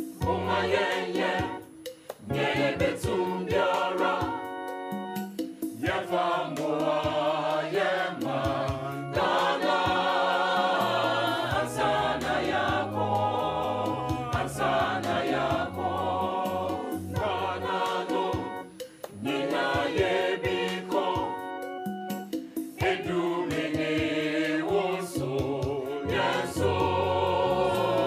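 Background gospel music: a choir singing over keyboard and bass.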